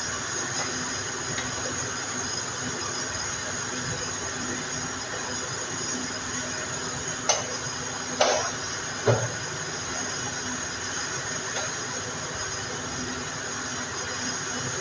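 A few sharp plastic clicks and knocks as the casing of a split air conditioner's indoor unit is pressed and snapped into place, three close together about halfway in and one more a couple of seconds later. A steady hiss with a low hum runs underneath.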